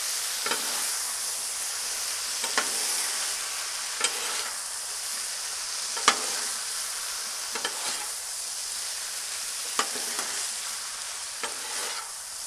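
Steak strips and mixed vegetables sizzling on a Blackstone flat-top griddle while two metal spatulas toss them together, scraping and clacking against the steel top every second or two, sharpest about six seconds in.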